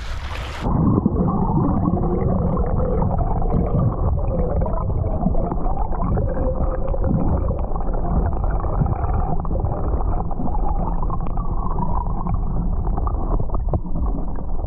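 Underwater noise picked up by a submerged action camera: shallow water rumbling and gurgling, dull and muffled. About a second in, the sound abruptly loses its high end as the camera goes under the surface.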